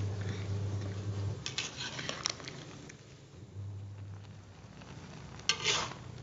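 Cassava chunks boiling in seasoned water in a metal pan, the water bubbling, while the cassava cooks down until the water reduces. A metal spoon clinks and scrapes against the pan a few times about two seconds in, and gives one sharp knock near the end. A low hum runs under it and drops out after about a second.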